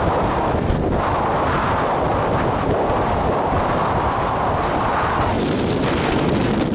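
Wind buffeting the camera microphone: a steady, loud rumble with no pitch to it.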